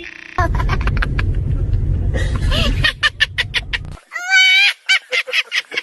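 A man's high-pitched, cackling laugh in quick short bursts, at first over a heavy low rumble of background noise; about four seconds in comes a louder, squealing burst of laughter.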